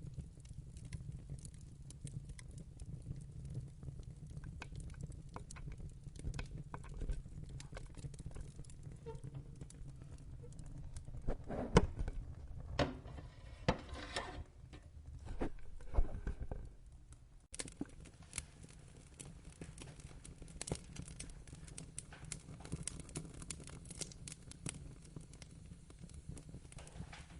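Wood fire in a fireplace crackling: a steady low rumble of flames with scattered pops and snaps, and a louder run of pops about halfway through.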